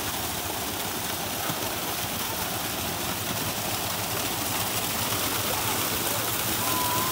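Water pouring down a small waterfall over stones, a steady rushing that grows slightly louder toward the end.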